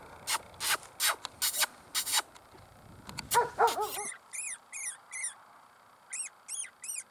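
Rubbing and knocking handling noises at first. Then, from about four seconds in, an electronic predator caller plays short, high-pitched squeaks that rise and fall, repeated in quick runs of a few at a time.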